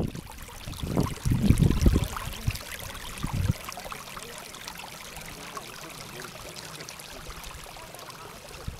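Wind buffeting the microphone for the first few seconds, then a small mountain stream trickling steadily.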